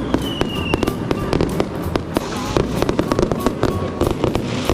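Burger patties frying on a hot griddle: hot fat crackling and popping many times a second, steady throughout, with faint music behind.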